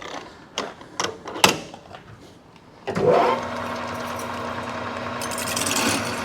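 A few sharp clicks and knocks, then about three seconds in a Precision Matthews metal lathe starts up and runs steadily with a constant hum, its sound growing a little brighter near the end.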